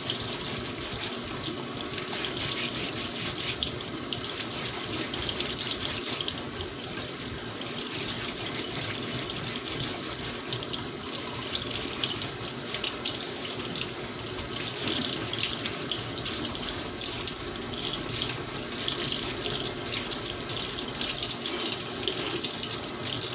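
Kitchen tap running steadily into a sink while potatoes are scrubbed clean under the water, the stream splashing and spattering as they are turned and rubbed.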